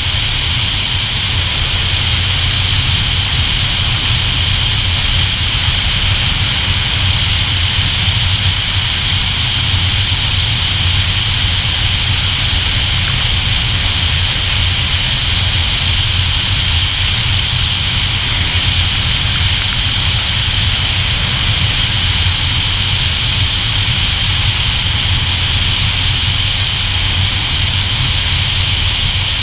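Motorcycle cruising at a steady speed: a low engine rumble under a loud, steady rush of wind over the microphone, with no change in engine pitch.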